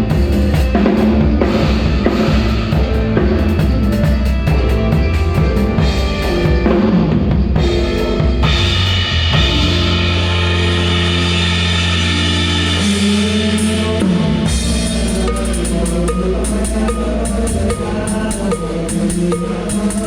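A live band playing, with a drum kit (bass drum, snare and cymbals) under sustained bass and chord notes. Partway through the drumming thins out under a long held chord, then picks up again about two-thirds of the way in.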